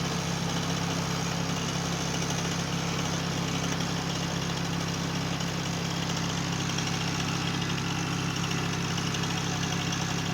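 Two-stroke chainsaw engine running steadily, with no let-up in speed.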